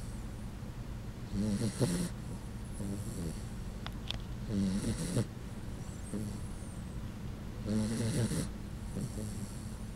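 Puggle snoring in deep sleep, a loud rasping snore that sounds almost human about every three seconds, with softer breaths between.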